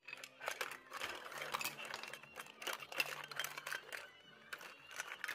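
Scallop shells clattering against each other and a ceramic bowl as a potful of steamed scallops is tipped in, a rapid irregular run of hard clicks.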